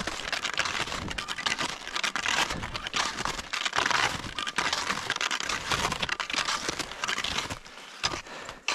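Close, dense rustling and crinkling with many small crackles, the sound of material being handled right by the microphone; it eases off near the end.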